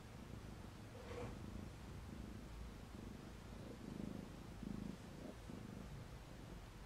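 Faint purring of young kittens, coming in soft pulses a little under a second apart, loudest around the middle.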